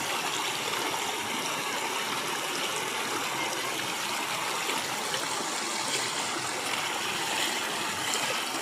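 Flooded river rushing steadily, its water running high and fast after rain.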